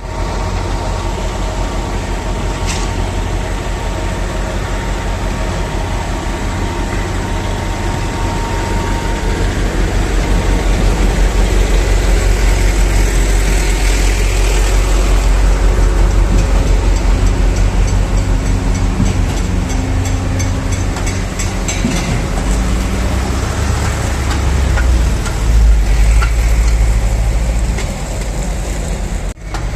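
Heavy diesel truck engines running steadily under load, as from a concrete boom pump and mixer truck during pumping. The low rumble grows louder toward the middle, surges about 25 seconds in, and drops out briefly just before the end.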